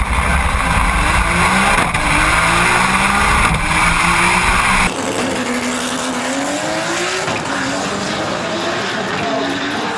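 Turbocharged Chevrolet Opala straight-six drag car at full throttle down the strip. The engine's pitch climbs again and again as it pulls through the gears, heard loud and close from a camera on the car's side. About five seconds in, the same run is heard quieter and from further off at trackside.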